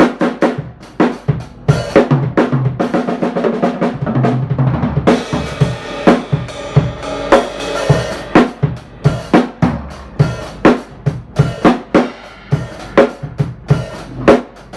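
A drum kit played freestyle: fast kick and snare hits, with a cymbal wash building from about five seconds in. The playing stops right at the end.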